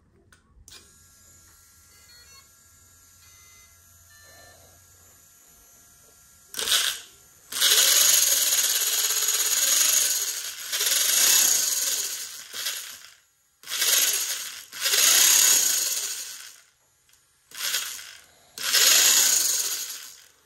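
A few faint beeps, then the electric motor of a 1/5-scale Thunder Tiger RC motorcycle run up in about six bursts from the radio's throttle, spinning the chain-driven rear wheel; the first long burst lasts about five seconds, the later ones one to two seconds.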